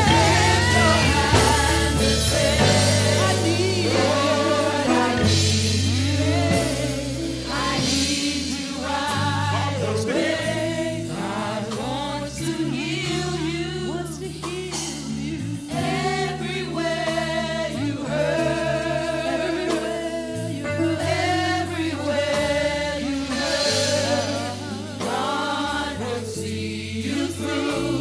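Gospel choir singing with a solo voice over a band, with sustained bass notes under the melody.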